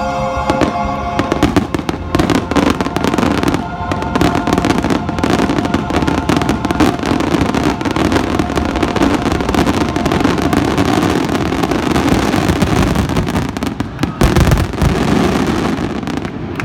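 Aerial fireworks going off in a dense, continuous barrage of overlapping bangs and crackles, with a heavier low boom about fourteen seconds in.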